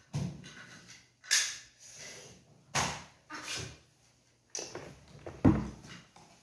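Plastic toys being handled and knocked about by a toddler: a series of short clatters with pauses between them, the loudest a thump about five and a half seconds in.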